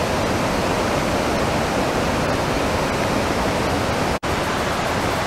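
Iguaçu Falls' water crashing down in a steady, dense rush of noise, with a brief drop-out about four seconds in.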